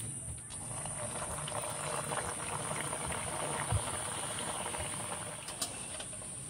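Stuffed fish-shaped maida-dough pieces deep-frying in hot oil in an aluminium kadai: a steady crackling sizzle that eases off near the end.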